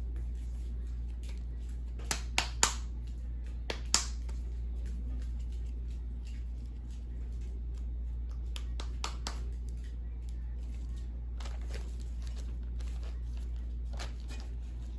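Sharp clicks and knocks from working a tortilla press while pressing corn tortillas: a cluster of about five about two to four seconds in, and fainter ones later, over a steady low hum.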